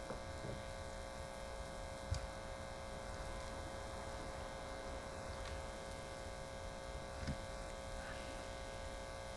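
Steady electrical hum and buzz from the powered-up bench setup, with a couple of faint taps about two and seven seconds in.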